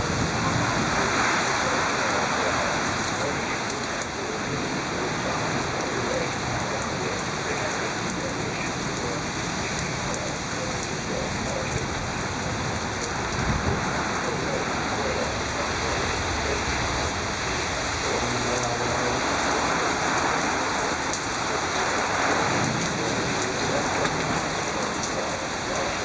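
Heavy rain pouring steadily in a severe thunderstorm, with a low rumble of thunder about halfway through and again later on.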